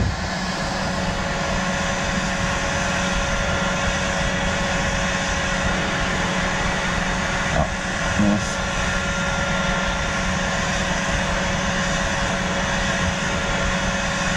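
Steady drone of workshop machinery, a low hum with a faint thin whine over it, with a couple of light knocks a little past halfway.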